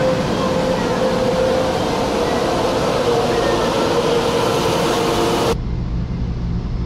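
Electric commuter train moving past the platform: wheel and track noise with a steady motor whine. About five and a half seconds in it cuts to the duller, lower rumble heard inside a moving train.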